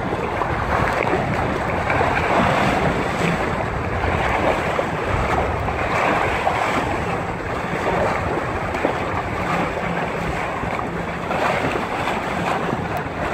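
Hobie Wave catamaran hull driving through choppy water: a steady rush of spray and splashing over the bow, with wind buffeting the microphone.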